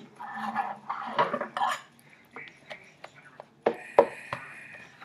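A metal utensil clinking and scraping against a glass baking dish as buns are cut and lifted out. About three and a half seconds in come three sharp clinks in quick succession, each ringing briefly.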